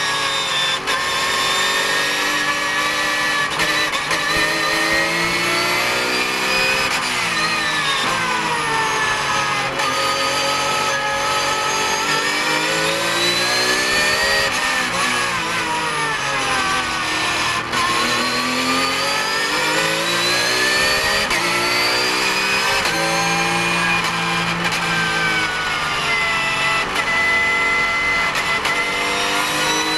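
Porsche 991 GT3 Cup race car's flat-six engine, heard from the cockpit, pulling hard and easing off through a lap: its pitch climbs under throttle and falls back when braking and changing gear, over and over.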